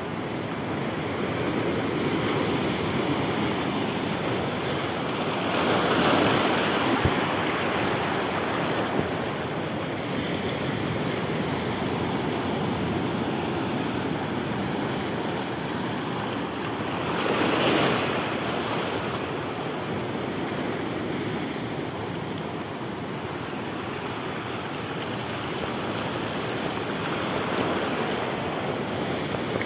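Sea surf breaking and washing over a rocky reef, a steady rush that swells louder as bigger waves break, about six seconds in and again about eighteen seconds in.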